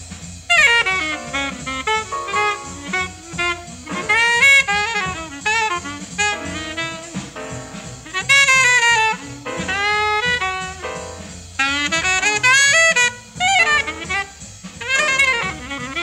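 1950 bebop jazz studio recording: fast, busy horn solo lines in quick rising and falling runs over bass and drums.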